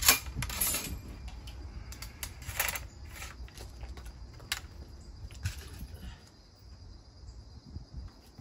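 Steel ramrod of a Model 1861 Springfield rifle musket clinking as it is drawn from the barrel after loading and slid back into its pipes, the loudest clink right at the start, followed by scattered light metallic clicks as the musket is handled and readied to fire.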